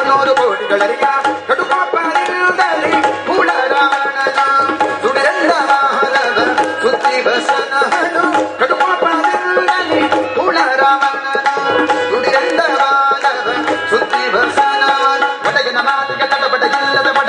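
Tabla playing a steady rhythmic accompaniment, with deep bass-drum strokes recurring about every one and a half to two seconds, under sustained, ornamented melodic tones in an instrumental passage of Indian devotional music.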